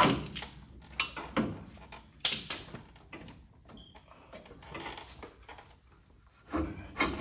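Scattered metal clanks and knocks from hand tools and front-suspension parts being worked loose, several separate strikes with quieter gaps between.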